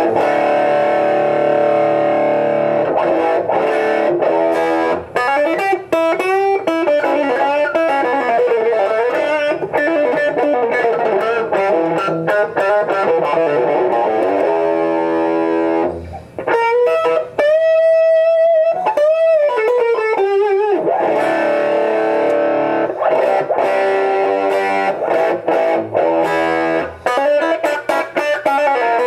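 Electric guitar played through a Marshall JCM2000 DSL100 100-watt valve amp head: chords and single-note lines, with one long held note wavering with vibrato about two-thirds of the way through. The amp is working normally after about half an hour of hard playing, with no fault showing.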